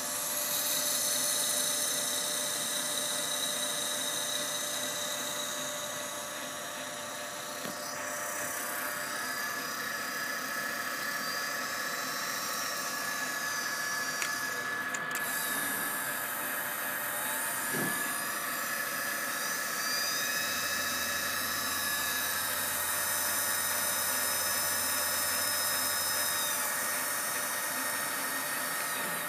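Hardinge HLVH toolroom lathe running with no cut, giving a steady high whine made of several tones, with slight shifts in pitch now and then.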